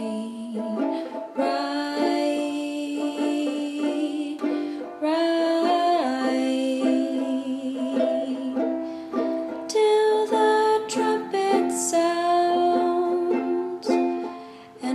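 Background music: a song with plucked-string accompaniment.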